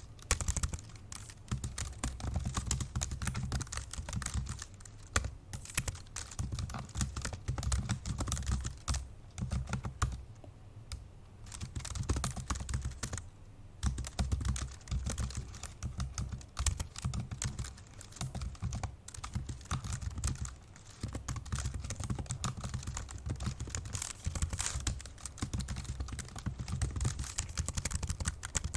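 Fast, heavy typing on an old MacBook Pro's built-in laptop keyboard: a dense run of key clicks with a couple of brief pauses midway.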